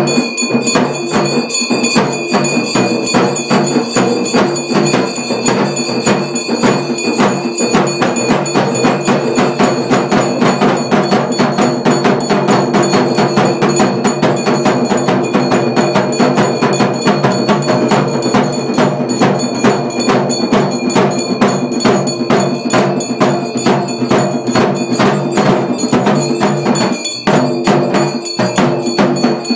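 Temple bells clanging in a fast, steady rhythm together with percussion, the ringing that goes with the camphor-flame aarti of a Hindu pooja.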